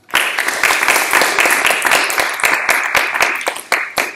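Small audience applauding: dense hand clapping that starts abruptly and thins out near the end.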